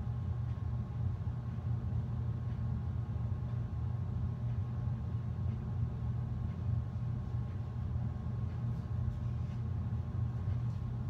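Steady low machine hum with a faint high steady tone over it, unchanging throughout.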